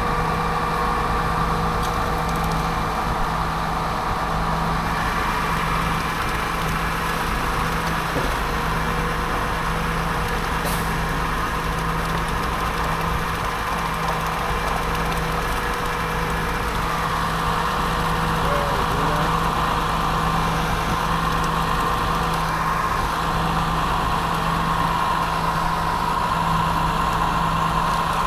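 Heavy diesel engines of a concrete pump and agitator truck running steadily during a pour, a constant low hum with a higher whine over it that grows stronger later on.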